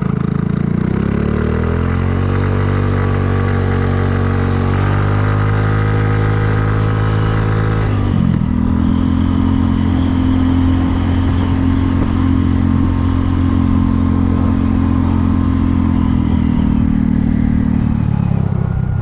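Kymco People 250 scooter's single-cylinder engine pulling away, rising steadily in pitch for several seconds, then running evenly at cruising speed before easing off near the end. Its exhaust leaks are sealed with JB Weld high-heat epoxy, leaving it the quietest it's ever been.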